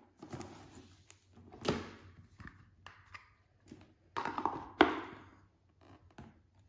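Handling noise from Blu-ray cases being slid into a cardboard slipcase box: scrapes and a few knocks. The loudest is a sharp knock a little before five seconds in, as the box is set down on the marble tabletop.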